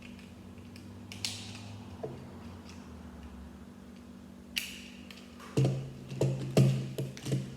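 Plastic Lego pieces clicking and knocking as they are handled and pressed together on the model: a few single clicks, then a quick run of louder knocks in the last two seconds.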